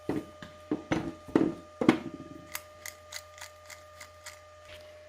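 Four heavy knocks in the first two seconds, then a run of lighter clicks, about three a second, over a faint steady hum.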